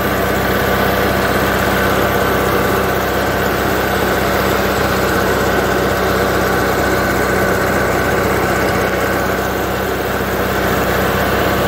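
Air-cooled Onan B-series engine running steadily while its points ignition timing is checked with a timing light. The timing marks line up, so the engine is correctly timed.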